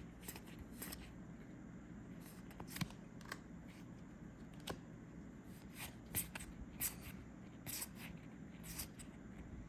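Star Wars: Unlimited trading cards being flipped through and slid against one another by hand, a series of soft, irregular flicks and clicks.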